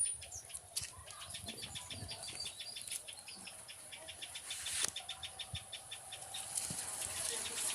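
Tailorbird chicks chirping in a fast, even series of short high-pitched notes, about ten a second, over a steady high hiss. A single sharp click comes about five seconds in.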